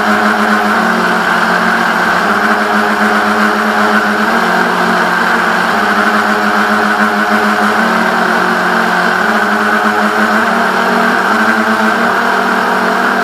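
Twin electric motors of a Reely Wavebreaker RC boat running at a steady hum, the pitch stepping slightly up and down with small throttle changes.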